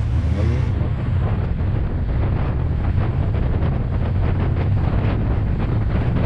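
Wind buffeting the microphone on a moving Harley-Davidson Electra Glide, over the steady low sound of its 1700cc-class V-twin engine running at riding speed.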